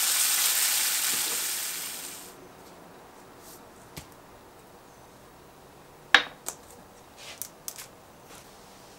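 Fish cakes sizzling in a frying pan, fading out over the first two seconds. Then a few light taps and clinks of dishware, the loudest a sharp ringing clink a little after six seconds in.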